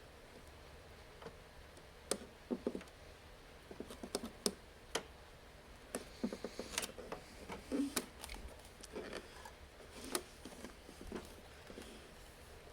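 Scattered clicks, taps and short rattles of hand work on a MIG welder's parts and wire feed, a few at a time with pauses between.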